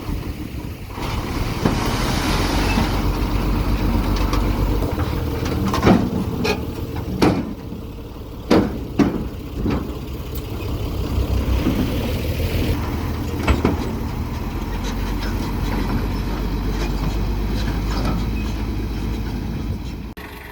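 Bulldozer's diesel engine running steadily, with a few sharp metallic clanks around the middle. It fades out right at the end.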